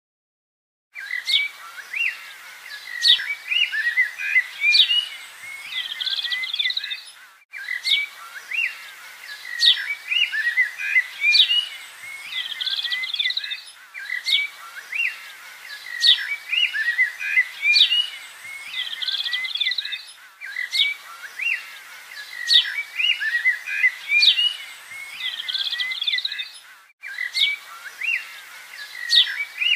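Birdsong ambience: many small birds chirping and twittering in quick high calls. It starts about a second in and repeats as a short loop, with brief dropouts where it restarts.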